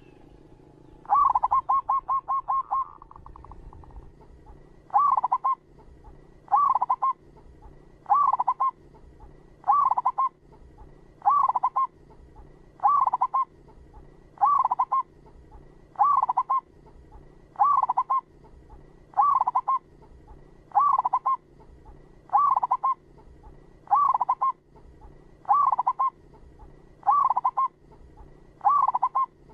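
Zebra dove (perkutut) cooing: a two-second run of rapid stuttering notes about a second in, then a short rolling coo repeated steadily about every second and a half.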